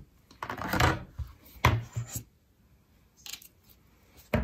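Handling noise from a Stamparatus stamping tool and its magnets: a brief rustle early on, then several separate sharp plastic-and-metal clicks and clacks.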